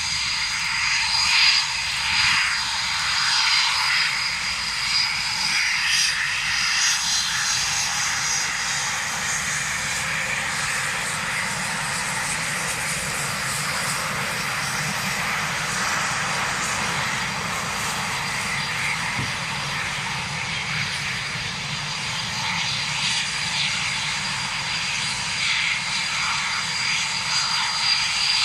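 Eurofighter Typhoon's twin EJ200 turbofan jet engines running at taxi power, a steady jet noise with a thin, high whine held throughout.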